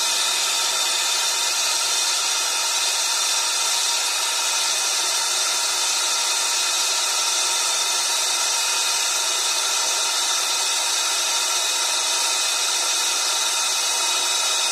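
Brazing torch flame hissing steadily while heating a copper refrigerant line joint on an evaporator coil.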